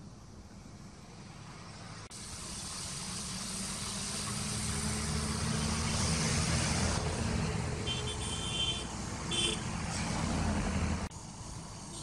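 A motor vehicle's engine running and growing louder over a rushing hiss, with brief high-pitched tones about eight seconds in and again a second and a half later; the sound cuts off suddenly about eleven seconds in.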